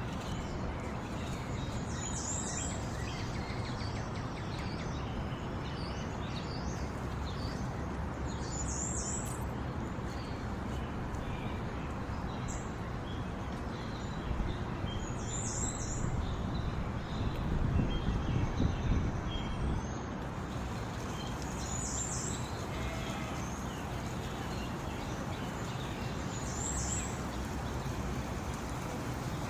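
Steady flowing water with a bird repeating a short high chirp about every six seconds. A louder low rumble swells briefly a little past the middle.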